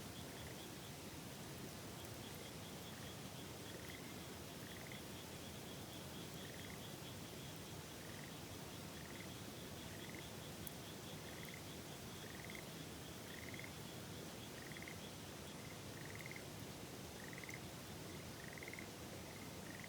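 Frogs calling over the steady rush of a river: a short rising chirp repeated about once a second, and a fast, higher-pitched trill that stops about fifteen seconds in.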